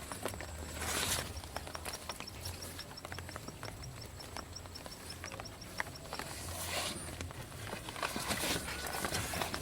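Light rain pattering on an umbrella: a steady hiss of many small drop clicks, with a few louder swells near the start and end. A high, fast ticking, about six ticks a second, runs through the first six seconds.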